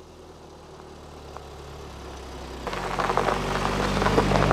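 A car driving along a snow-covered road: its engine hum grows slowly louder as it approaches, then about two-thirds of the way through it passes close by with a loud rush of tyres crunching over packed snow.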